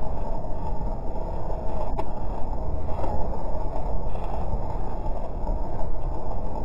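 Car driving on a rain-wet highway: a steady low rumble of road and tyre noise. A single sharp click comes about two seconds in.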